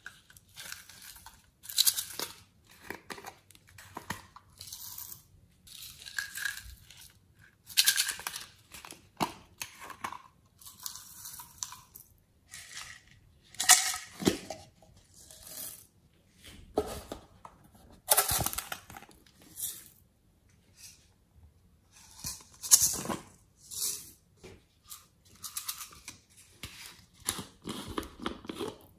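Small plastic slime containers handled and opened: irregular clicks, knocks and scrapes of plastic as lids are twisted and pulled off and pots are set down.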